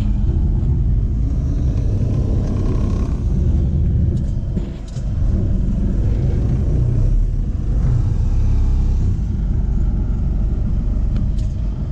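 Small boat's engine running steadily under way, a continuous low rumble, dipping briefly about five seconds in.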